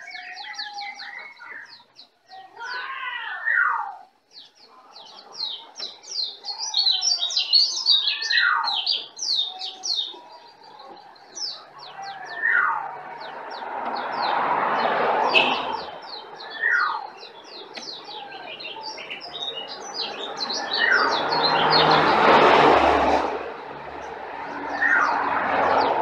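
Songbird calls of a masteran birdsong recording, the kind played to caged birds to get them singing: dense runs of quick, high chirps and trills, with a short rising whistle repeated every few seconds. A rushing noise swells around the middle and again near the end.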